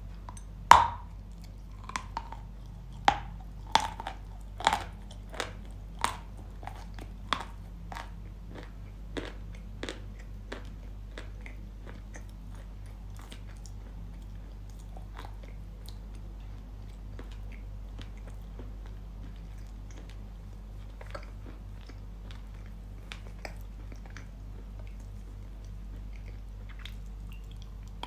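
A bite into a dry block of Yampol edible chalk coated in paste, then close-miked chewing with sharp, crisp crunches. The crunches are loudest at the first bite about a second in and come about every half to one second, then thin out after about ten seconds into quieter chewing with occasional crunches.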